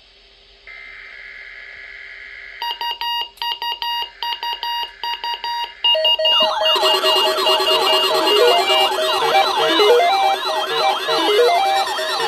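Electronic alarm tones: a faint steady tone, then rapid beeping at about four beeps a second, then from about six seconds in a loud, fast up-and-down wailing siren layered with stepping beep tones.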